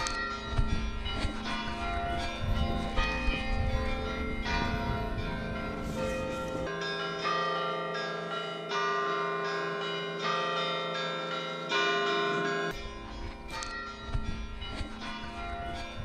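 Church bells pealing: several bells struck in quick succession, their tones ringing on and overlapping.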